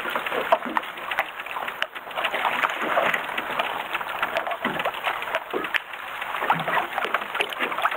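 Choppy sea water slapping and splashing against the hull of a small open fishing boat, a steady uneven wash broken by many small irregular clicks and slaps.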